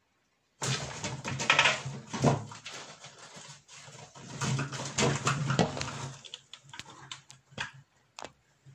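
Ball python striking and coiling around a live Syrian hamster: a sudden loud struggle of scrabbling, thrashing and knocks starts about half a second in. It lasts about five seconds, then thins to scattered clicks and knocks.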